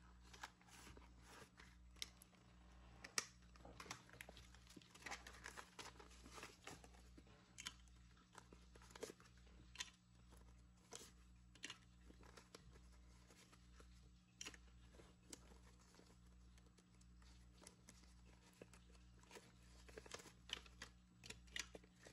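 Faint rustling and flicking of paper dollar bills being pulled from a plastic pouch and sorted by hand, in many small irregular crackles over a low steady hum.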